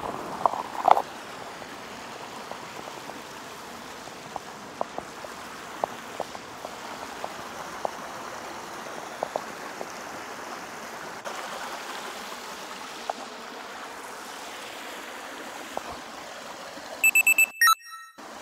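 Shallow, rocky river flowing steadily, an even rush of water with scattered faint ticks. About a second before the end, a short run of loud electronic beeps cuts in.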